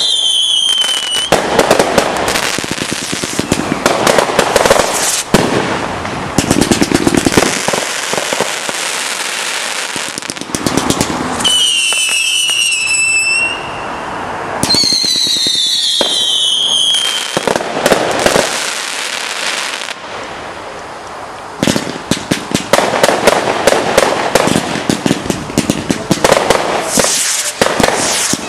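Fireworks display of category 2 and 3 consumer fireworks: repeated bangs and crackling, with three whistles falling in pitch, one near the start and two a little past the middle. The bangs come thick and fast towards the end.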